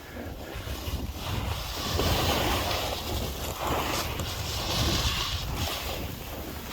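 Skis sliding and scraping over snow, a steady hiss that swells in the middle, with wind buffeting the microphone as a low rumble.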